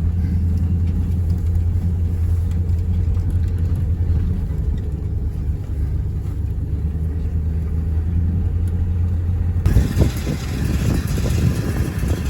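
Vehicle engine droning steadily while driving, heard from inside the cab. About ten seconds in, a rougher, rattling noise with more hiss joins it.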